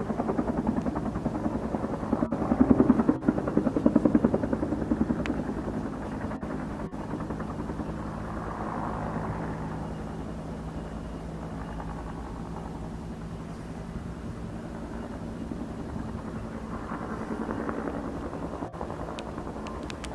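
Helicopter rotor chop with a steady engine drone underneath, at its loudest about two to four seconds in, then easing to a steadier, slightly quieter level.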